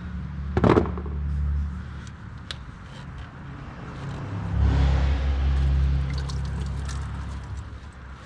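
Engine coolant pouring out of a disconnected hard line into a catch can, loudest from about halfway through, with a brief metallic scrape near the start.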